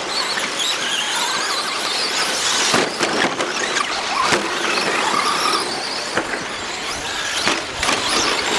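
A pack of 2WD RC short course trucks racing: the high-pitched whine of their electric motors rises and falls with the throttle, and several whines overlap. A few sharp knocks cut through.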